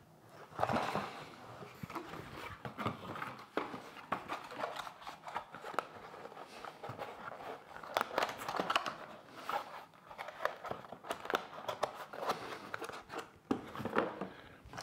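Cardboard packaging being handled: a cardboard insert lifted and folded and the carton rummaged through, giving irregular rustling, scraping and light knocks.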